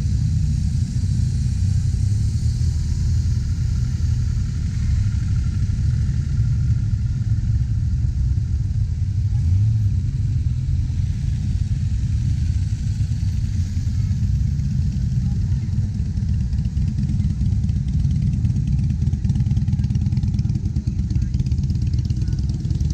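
A procession of motorcycles and motor trikes riding past one after another. Their engines make a continuous, deep, steady rumble.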